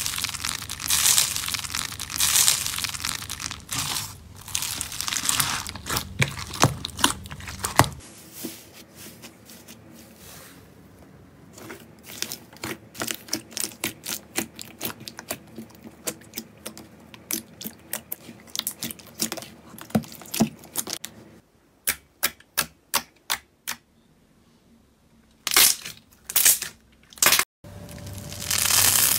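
Hands working slime in a run of clips. Foam-bead slime is pressed and squeezed with a dense crunching crackle. Then clear, watery slime is pushed around, giving a long run of small pops and clicks. Near the end a crisp, stringy slime is stretched, crackling again.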